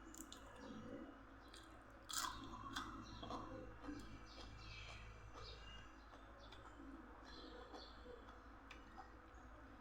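Faint close-up chewing and wet mouth sounds of someone eating seafood papaya salad, with small clicks and crunches; the loudest bite comes about two seconds in.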